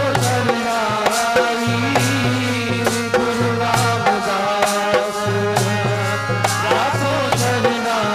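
Instrumental passage of Sikh dharna kirtan: a harmonium plays the melody over sustained reed tones, while a dholak is beaten by hand in a steady rhythm.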